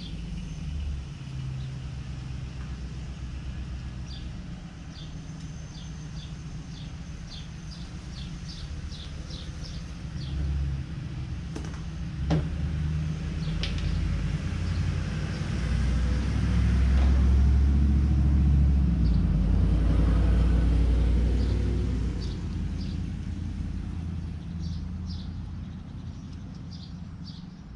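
A low rumble that builds to its loudest about two-thirds of the way through and then fades, with birds chirping.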